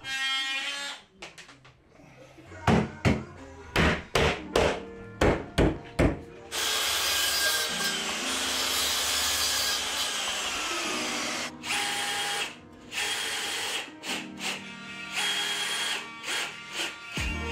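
A series of sharp knocks, then a DeWalt mitre saw running for about five seconds as it cuts a piece of trim, followed by short bursts of a cordless drill-driver driving screws into chipboard cabinet panels.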